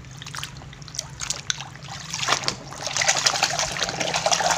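Muddy water splashing and sloshing in a basin as a plastic toy truck is scrubbed by hand. It gets busier and louder about two seconds in.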